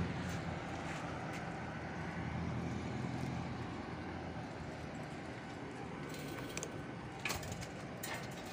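Honda PCX 160's single-cylinder engine idling steadily, with a couple of sharp clicks near the end.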